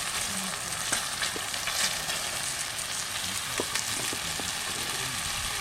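Campfire crackling: a steady hiss with many small, irregular pops and snaps.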